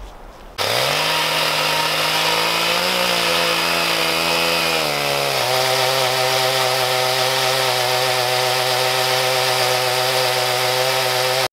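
Gas chainsaw on a chainsaw mill ripping a cottonwood log lengthwise into slabs. It comes in suddenly about half a second in and its pitch rises to a high steady note. About five seconds in the pitch drops and holds lower as the chain cuts under load.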